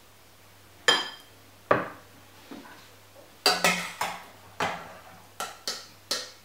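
A metal serving spoon clinking and knocking against a ceramic bowl and a stainless-steel saucepan while food is spooned out. It makes about ten sharp, irregular clinks; the first one rings briefly.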